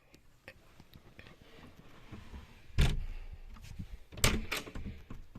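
An interior door on the boat being handled: a heavy thud about three seconds in, then a sharper knock followed by a click about a second and a half later.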